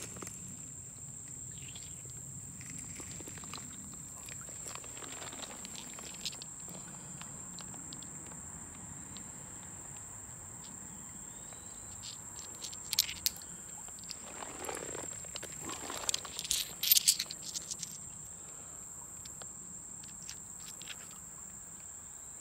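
Steady high-pitched chorus of insects. A little past halfway, a short run of sharp clicks and rustling from handling.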